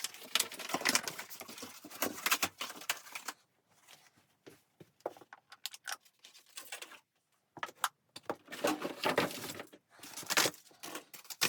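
Rustling and light clattering of things being handled, in two busy spells of about three seconds each, with a few scattered clicks between.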